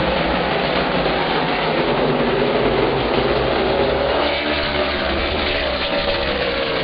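A pack of super late model stock cars racing past at speed, several V8 engines running together at high revs. From about four seconds in, the engine notes slide down in pitch as cars sweep past close by.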